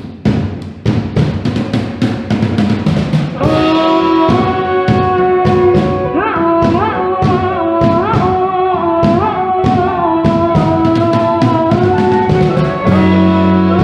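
A band playing: a drum kit beats steadily, and about three and a half seconds in a sustained melody with sliding, bending notes enters over it. Near the end a deeper bass note joins.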